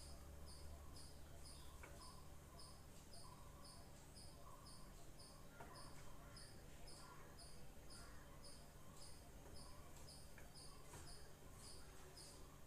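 Faint, steady insect chirping: high-pitched pulses at about three to four a second, with a softer, lower note repeating behind them.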